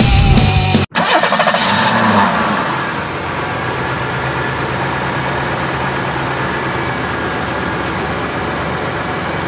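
Loud rock music that cuts off abruptly about a second in, then the steady running noise of a Ninebot electric go-kart being driven.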